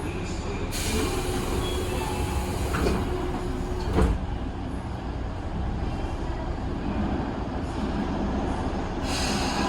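Running noise of a Tobu 9000 series armature-chopper electric motor car in a subway tunnel. A steady jet-like abnormal noise drowns out the chopper sound, with a faint held tone for a few seconds and a single knock about four seconds in.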